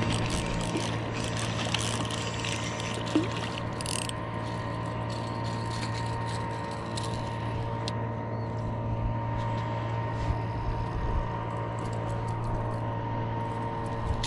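A boat's motor running steadily, with water noise against the hull.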